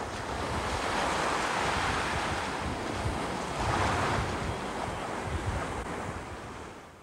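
Surf washing in on the beach, with wind buffeting the microphone; the wash swells about a second in and again around four seconds, then fades out near the end.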